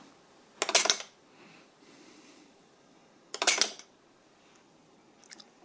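Solari Udine Cifra 12 slave flip clock stepping its minute display twice, about three seconds apart. Each step is a short clatter of the flip cards falling over, one minute advanced for each pulse applied.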